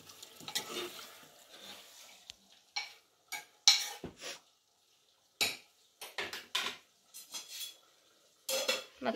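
Metal kitchen utensil scraping and clinking against a vessel in short, separate strokes with brief quiet gaps between them.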